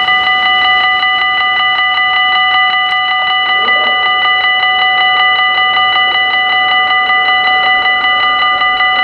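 Railway level crossing warning bell ringing rapidly and steadily, about five strikes a second.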